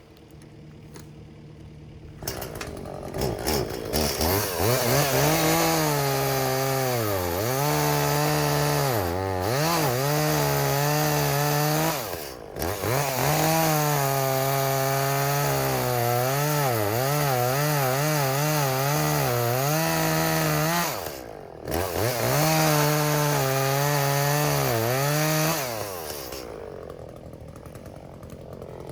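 Echo two-stroke chainsaw felling a standing tree. It revs up about two seconds in and runs at high revs, its pitch dipping again and again as it bogs in the cut. It lets off twice, briefly, and drops back toward idle near the end.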